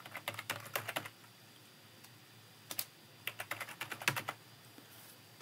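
Typing on a computer keyboard: a quick run of keystrokes in the first second, a single keystroke a little under three seconds in, then another run of keystrokes.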